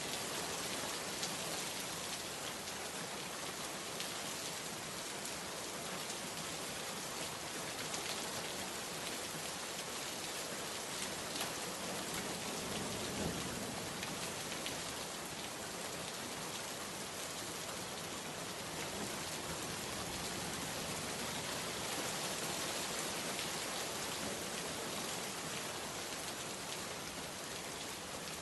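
Steady heavy rain: a dense, even hiss of drops falling on surfaces, with a slight low swell a little before the middle.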